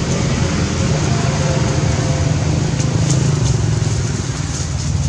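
A motor engine running steadily close by, a continuous low drone with no change in speed. A few faint high clicks or rustles come through about three seconds in and again near the end.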